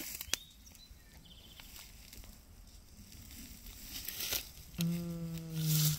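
Light rustling and snapping of bramble leaves and stems as someone moves through a wild blackberry thicket. Near the end a person hums one steady low note for about a second, running into a loud rustle of leaves.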